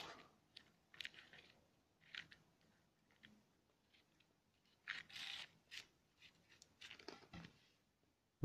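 Faint crackling and tearing of a cardboard Smarties box being torn further open by hand: short crackles about a second apart, with a longer tear a little after five seconds in.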